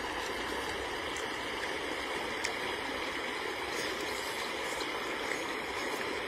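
Steady rush of a shallow river running over rocks, with a few faint clicks.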